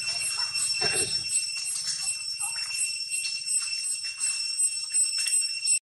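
A steady, high-pitched drone of several tones held throughout, with dry leaves rustling and scuffing underfoot and a louder scuffle about a second in.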